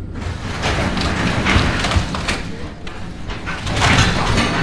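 A storm-bent steel shed frame being dragged down by a skid loader: metal scraping, creaking and knocking in quick, irregular strokes over the loader's engine running.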